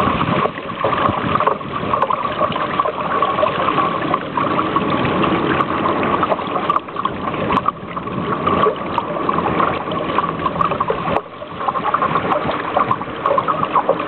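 Water rushing and gurgling along the hull of a sailing canoe under way: a steady, noisy wash that rises and falls.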